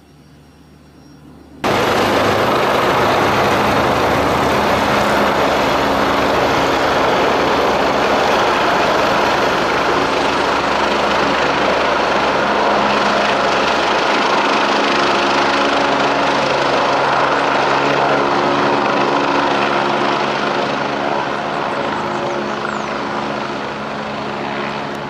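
Helicopter engine and rotor running: a loud, dense, steady noise with a low hum, cutting in suddenly about two seconds in and easing off a little near the end.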